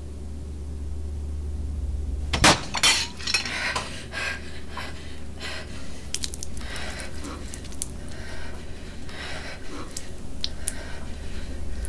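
A sharp knock about two and a half seconds in, then a run of irregular clattering and clinking of crockery and cutlery, over a steady low hum.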